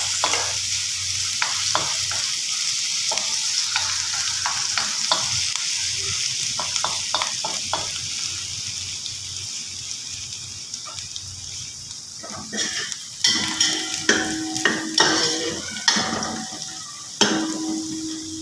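Sliced onions with ginger-garlic paste sizzling in hot oil, a steady hiss that slowly fades. From about twelve seconds in, a metal spoon stirs the pan with a run of sharp clicks, scrapes and knocks.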